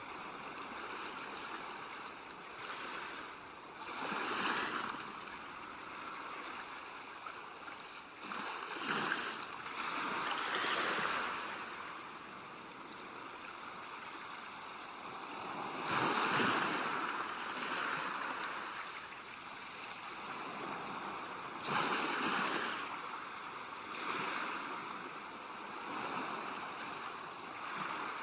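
Ocean surf: a continuous wash of water with a louder wave surging in and fading every few seconds.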